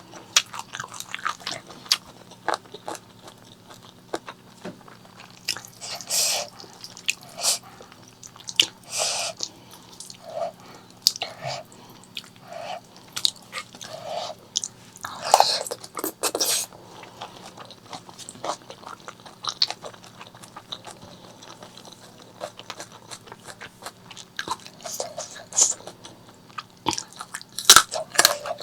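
Close-miked eating sounds of spicy pork leg curry with rice: chewing and biting with irregular wet mouth clicks and smacks.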